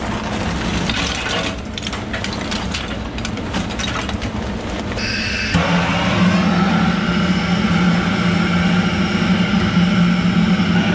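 Lump charcoal clattering and crackling as it is loaded into a kamado grill's ceramic firebox. About five seconds in, a long-wand gas torch lights and runs with a loud, steady rushing hum against the coals.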